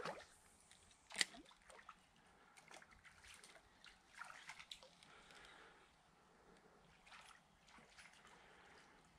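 Quiet river water with a light splash a little over a second in, then soft trickling and a few faint clicks.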